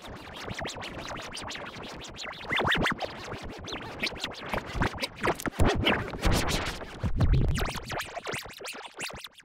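Cartoon-ident music put through editing effects: chopped into rapid stutters with short scratch-like pitch glides.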